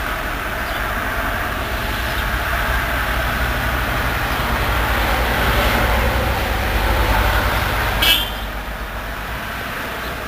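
Steady rumble and hiss of distant engine noise that swells over several seconds and then eases, with one short knock about eight seconds in.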